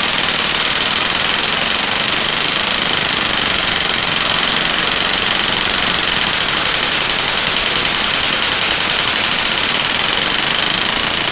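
Loud steady hiss of compressed air escaping through a large leak in an electro-pneumatic (EPAR) airsoft gearbox conversion, over the rapid, even chatter of its timer-driven solenoid valve cycling shop air into the gearbox.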